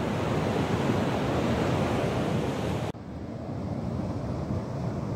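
Surf washing on a beach, a steady rush of waves with wind buffeting the microphone. About three seconds in it cuts off abruptly to a quieter, duller rush.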